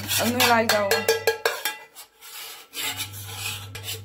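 Rubbing and scraping with light knocks and clinks as steel kitchen bowls and a spoon are handled.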